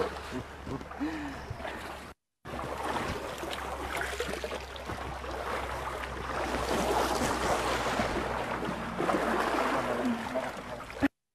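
Shallow river water splashing and sloshing as elephants and people wade and scrub, a steady rush that grows louder past the middle. The sound cuts out briefly about two seconds in.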